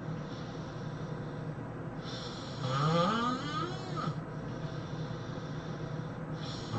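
A person snoring: one long snore about two and a half to four seconds in that rises steadily in pitch, with the next snore just starting at the end, over a steady low hum.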